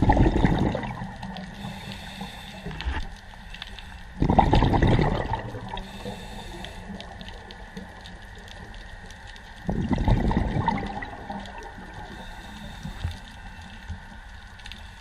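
Scuba regulator exhaust bubbles from a diver breathing out, heard underwater: three rushing, gurgling bursts about five seconds apart.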